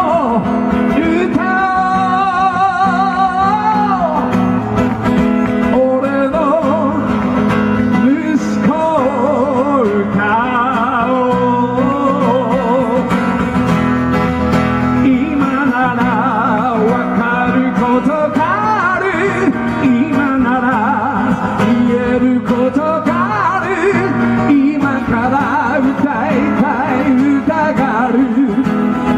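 Man singing live to guitar accompaniment, with a long note held with vibrato near the start.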